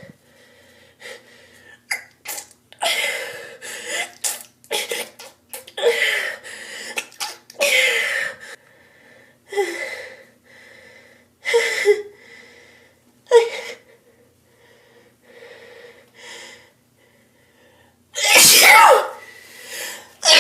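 A girl sneezing over and over, a string of short sneezes with sharp breaths between them. The last one, about two seconds before the end, is a much louder, longer full sneeze.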